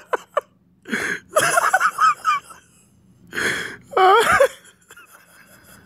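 A man laughing in several breathy bursts, trying to hold the laughter in.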